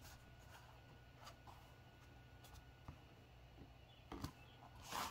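Near silence with faint handling sounds: fingers pressing and settling thin slotted wooden wall pieces onto a tray base, with a few light ticks and a short, louder rustle near the end.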